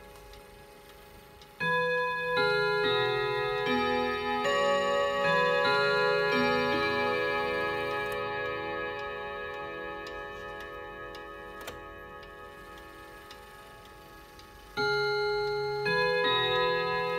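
ODO 62 pendulum wall clock's chime: eleven hammers striking eleven rod gongs in a melody, a run of notes starting about a second and a half in and slowly ringing away, then a new phrase near the end. The clock's movement ticks underneath.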